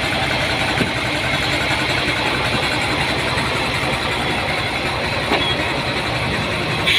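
Heavy lorry engine idling steadily.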